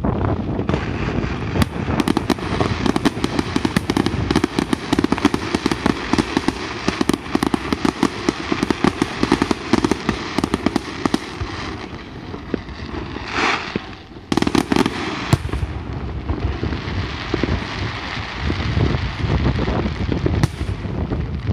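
Aerial fireworks going off in a dense barrage: rapid bangs and crackling from bursting shells, many a second, with a brief lull about two-thirds of the way through before the bangs resume.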